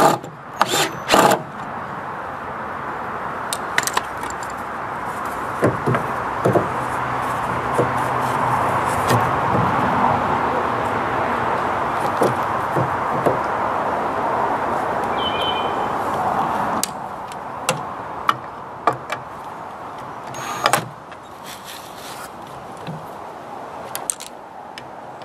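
Scattered clicks and knocks of lumber, a speed square and a cordless drill being handled, over a steady rushing background noise that cuts off suddenly about two-thirds of the way through.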